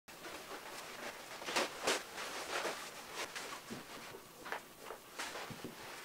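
Footsteps on a rug, then irregular soft knocks and rustling of clothing and boots as a person sits down on the floor and pulls on a pair of boots. The loudest knocks come about one and a half to two seconds in.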